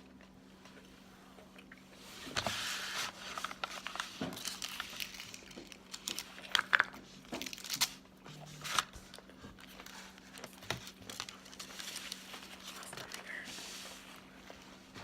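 Food packaging crinkling and rustling as it is handled, starting about two seconds in, with scattered sharp clicks and crunches.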